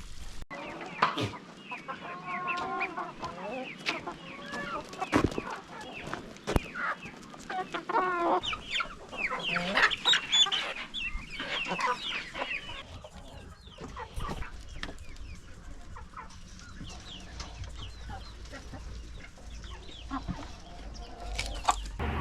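Chickens clucking, several birds calling over one another, with scattered sharp knocks. The calls are busiest in the first half and thin out after about thirteen seconds.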